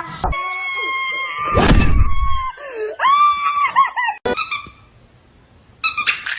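A long, high-pitched held cry, then a loud harsh burst, then wavering cries that rise, hold and fall. After a quieter stretch, a short sharp cry comes near the end.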